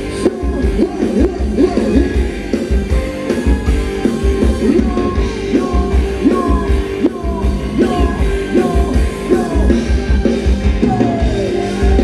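Live band playing a Thai ramwong dance song: a singer's melody over a steady pulsing bass and drum beat.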